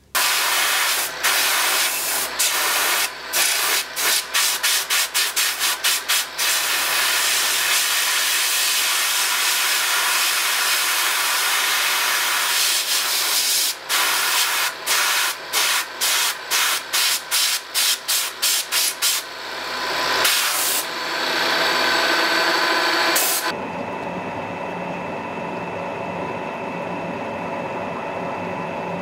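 Drill press boring through steel plate: a loud, harsh cutting noise broken by many short gaps. Near the end it settles into the quieter, steady hum of a drill press running.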